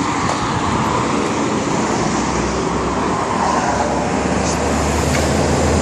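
Road traffic noise: a steady rush of engine and tyre sound from passing vehicles, with a low engine drone growing louder in the last couple of seconds.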